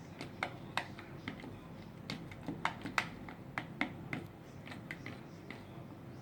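A spoon clicking against a bowl while stirring glue and water together for slime: about a dozen light, irregular clicks.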